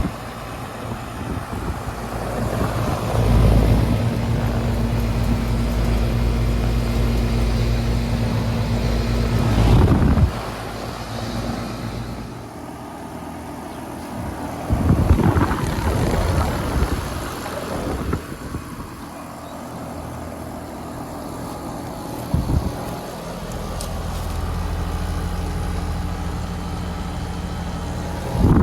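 Outdoor air-conditioner and heat-pump condensing units running in cooling mode: a steady compressor hum with fan noise. It changes abruptly about a third of the way in and again near the end as one unit gives way to another, with a louder, rougher stretch around the middle.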